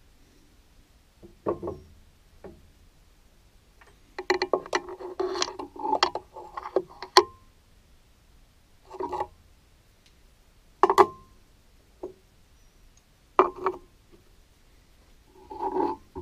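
Metal tools and parts clinking and clattering as they are handled at a stopped metal lathe, in separate bursts of knocks with quiet between them; a few strikes leave a short ringing tail.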